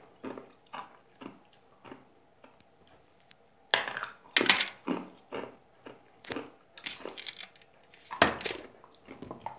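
Ice being bitten and chewed: a run of irregular crunches and cracks, small ones at first, the loudest about four and eight seconds in.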